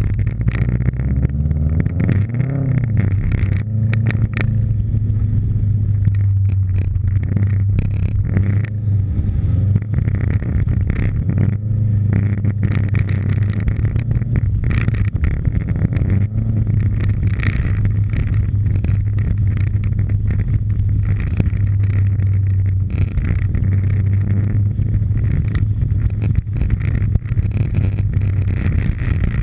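Subaru Impreza STI's turbocharged flat-four engine and exhaust under load, heard close from the rear of the car. It rises in pitch about two seconds in, then holds a fairly steady note.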